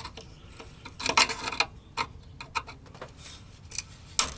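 Flathead screwdriver prying at the plastic mount of an evap vent solenoid: a string of irregular light clicks and short scrapes, the loudest near the end.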